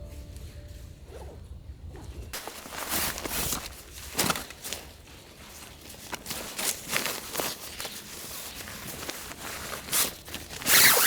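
Music fading out, then from about two seconds in irregular rustling with light knocks and scrapes, loudest near the end.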